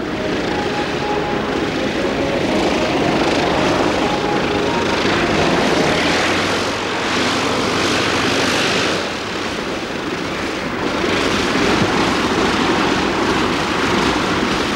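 Junkers Ju 52 trimotor taxiing, its three radial engines running with a steady propeller drone that eases a little for a couple of seconds around the middle.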